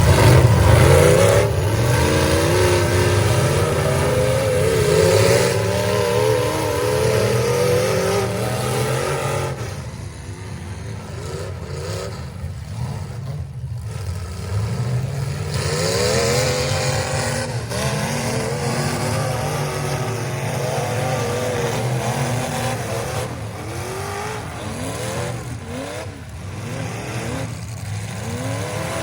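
Several demolition derby cars' engines revving and running at once, their pitches rising and falling as they accelerate and back up. The engines are loudest in the first third, then drop back a little.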